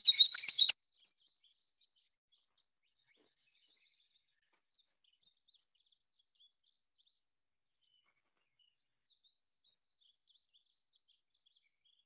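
Recording of a painted bunting singing: a loud, quick phrase of high chirping notes in the first second, then the song going on very faintly as scattered high chirps.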